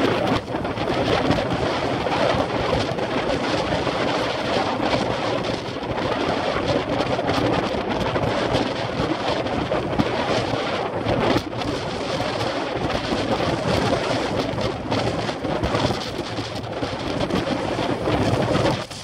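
Wind rushing over the microphone of a camera on a road bike moving at about 25 mph: a loud, steady noise with brief dips.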